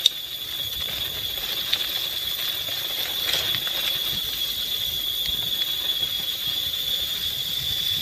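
Steady, high-pitched insect chorus, a continuous shrill tone. A sharp click sounds at the very start and a fainter one a little under two seconds in.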